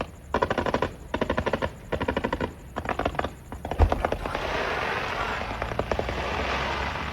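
Fireworks crackling: short bursts of very rapid pops, each under a second, repeating about every 0.8 s, then from about four seconds in a continuous dense crackle.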